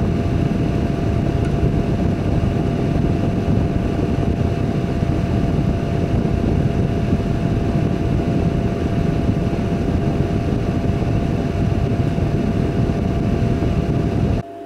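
Steady low mechanical rumble with a constant hum tone over it, like a motor or fan running, cutting off abruptly near the end.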